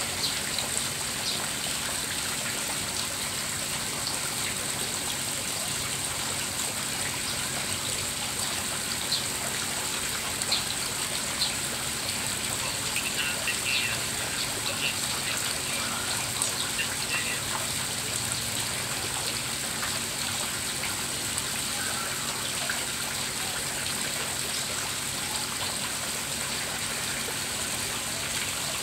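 Water from a small fountain aerator spraying up and falling back onto a fish tank's surface in a steady splashing patter, with a few sharper little splashes now and then in the middle.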